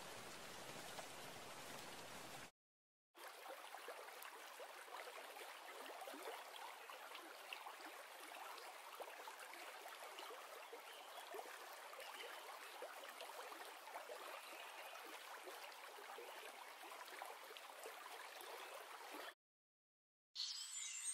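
Faint, even rain-like hiss with a fine crackle. It cuts out to silence twice: briefly about two and a half seconds in, and for about a second near the end.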